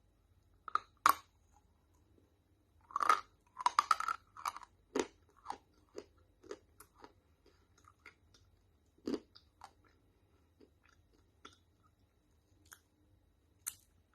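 Dry, crunchy clay being bitten and chewed, cracking sharply. Two loud cracks come about a second in, a dense run of crunches around three to five seconds, then sparser, fainter crunches.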